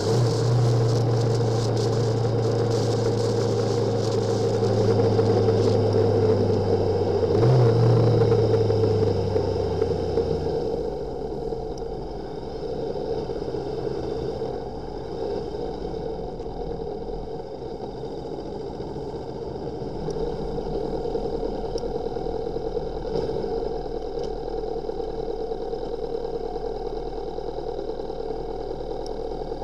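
Motorcycle engine running at steady revs under a steady rushing noise, with a brief rise in pitch about seven seconds in. About ten seconds in the engine note drops away, leaving only the rushing noise.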